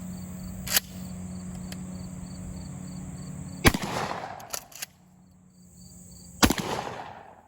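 Remington 870 12-gauge pump shotgun firing 00 buckshot: two shots about three seconds apart, each followed by a long echo. Between the shots the pump action is racked with a few quick metallic clicks.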